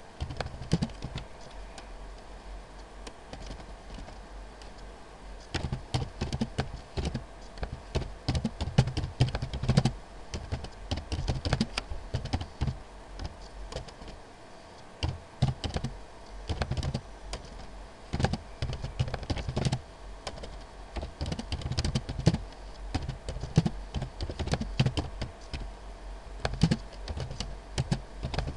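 Typing on a computer keyboard: uneven bursts of rapid keystroke clicks, with a lull of a few seconds early on before the typing picks up again.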